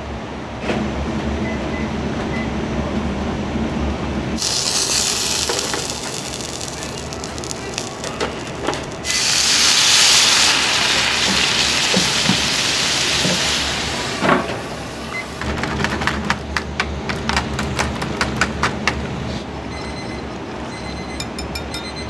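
Commercial kitchen cooking: a short burst of loud hissing, then a longer one lasting about five seconds, like steam or food hitting hot metal. This is followed by quick metallic clicking and clinking of utensils over a steady low hum of kitchen equipment.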